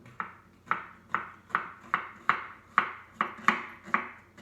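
A knife chopping vegetables on a wooden chopping board: a steady series of sharp chops, about two a second.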